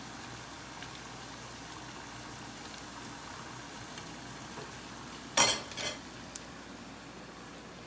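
Frozen potato smileys deep-frying in hot oil in a pan, a steady sizzle, while a wire mesh skimmer stirs them. About five seconds in, a brief loud rattle of the skimmer in the pan, then a smaller one.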